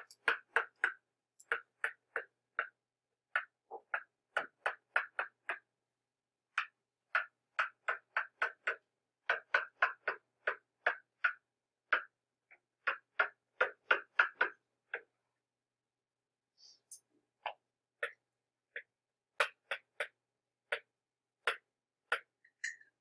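Stylus tip clicking and tapping on a hard tablet screen during handwriting: short, irregular clicks a few times a second, with a pause of about two seconds past the middle.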